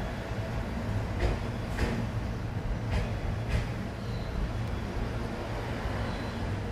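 Tobu 10030 series electric train standing at a station platform: a steady low hum from its onboard equipment, with a few short clicks and knocks.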